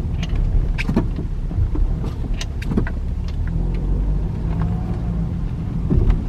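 2010 Ford Fusion being driven slowly, heard from inside the cabin: a steady low road and engine rumble with several short clunks and knocks at uneven intervals. It is being driven to bring out noises from a worn outer tie rod end.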